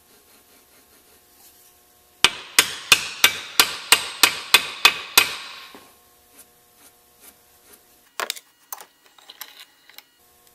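About ten hammer blows, roughly three a second, on a bearing driver, tapping a new bearing into a John Deere 318 mower-deck spindle hub held in a bench vise. A few lighter metal knocks and clatter follow near the end.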